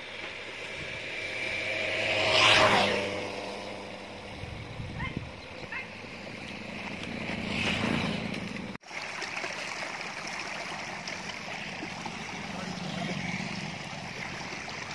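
Water running and trickling in a small irrigation canal, a steady rushing hiss, with two loud whooshing swells that rise and fade about two and a half and eight seconds in.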